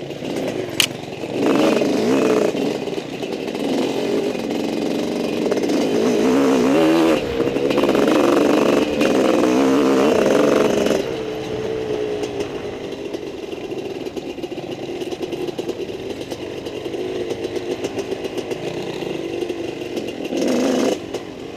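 Dirt bike engine revving under load, its pitch rising and falling with the throttle. It runs loudest for the first half, drops back sharply about eleven seconds in, and surges briefly near the end. A sharp click comes about a second in.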